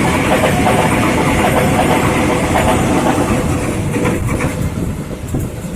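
Electric commuter train running past, wheels rumbling on the rails with a steady hum over it, getting quieter over the last couple of seconds.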